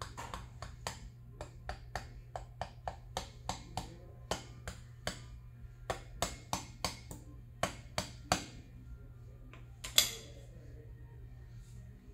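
A small metal tool tapping repeatedly on a steel bearing pressed into a heated aluminium housing, trying to knock it loose. Sharp, ringing metal-on-metal knocks come irregularly, two or three a second, with one much harder strike near the end.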